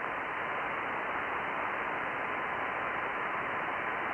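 Steady single-sideband receiver hiss with no top end, as heard through a narrow radio filter, and a faint steady tone under it. It is the Icom IC-756PRO III's receive audio fed straight into the mixer rather than through a speaker.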